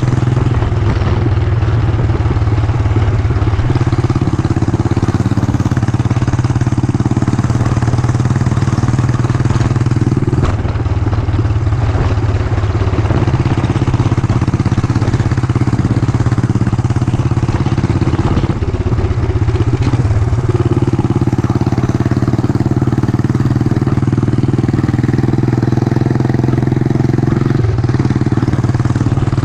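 Yamaha SR400's single-cylinder four-stroke engine running steadily, its note shifting briefly twice.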